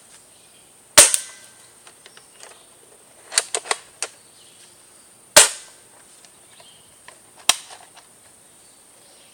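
Double Eagle M41 (G36C) airsoft gun firing BBs: a series of sharp single cracks a second or more apart, a quick group of three or four near the middle and the loudest shot just past halfway.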